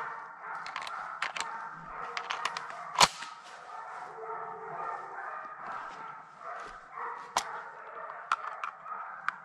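Pack of hunting hounds baying in the distance during a wild boar drive, a continuous overlapping chorus. Scattered sharp clicks run through it, and there is one much louder sharp knock about three seconds in.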